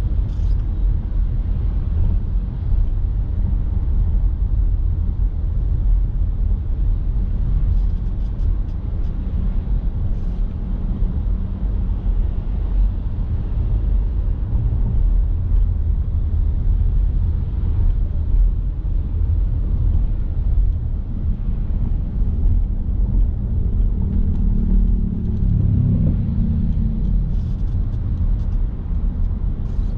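Car driving on wet city roads: a steady low rumble of engine and tyres, with a pitched hum that swells for a few seconds about three-quarters of the way through.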